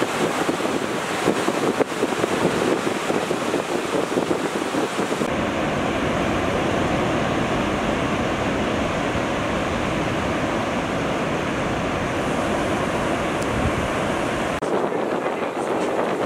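Ocean surf breaking and washing ashore, with wind rushing over the microphone. The noise changes abruptly about five seconds in and again near the end.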